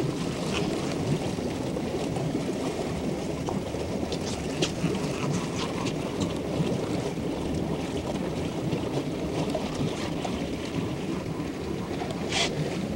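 Steady wind buffeting the camcorder microphone aboard a boat, over the boat's low rumble, with a few faint clicks and a short hiss near the end.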